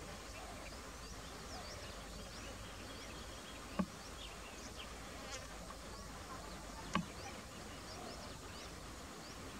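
Faint outdoor wildlife ambience: many short, high chirps scattered throughout over a steady hiss with an insect-like buzz. Two sharp clicks come about four and seven seconds in.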